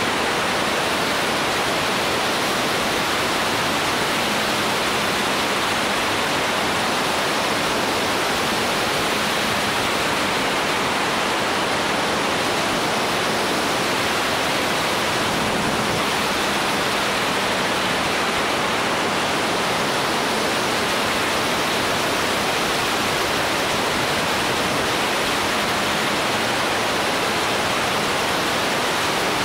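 Steady rush of wind buffeting the microphone of a motorcycle-mounted camera while riding at road speed, with a faint low hum of the bike's engine underneath at times.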